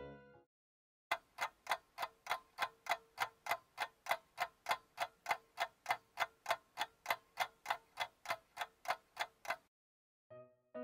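Clock ticking, about three even ticks a second, used as a time-passing sound effect for the cake baking in the oven.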